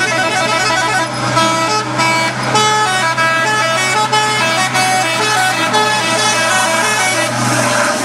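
Multi-tone telolet air horn on an Isuzu concrete mixer truck playing a quick tune, its notes stepping up and down, over a steady low engine hum.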